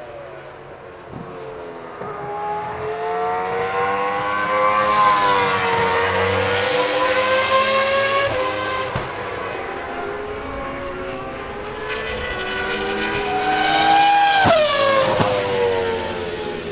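Toro Rosso STR1's 3.0-litre Cosworth V10 Formula 1 engine at high revs. Its note climbs and grows louder over the first few seconds, holds, then rises again and falls sharply in pitch as the car flies past near the end.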